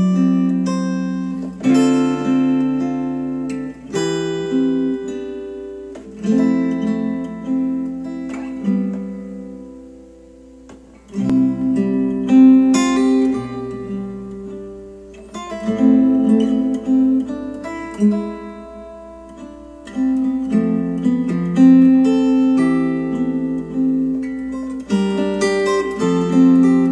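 Acoustic guitar instrumental played back through hi-fi bookshelf speakers, first KEF R3s and then KEF LS50 Metas, for a listening comparison. Strummed chords ring and fade, with a quiet lull about ten seconds in before the playing comes back strongly.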